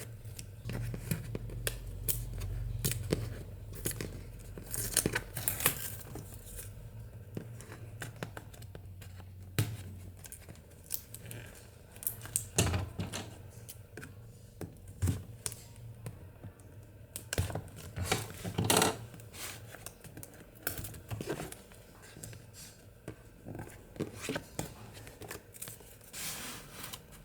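Instant-camera packaging being opened by hand: tearing, crinkling and scattered sharp clicks and taps at an irregular pace.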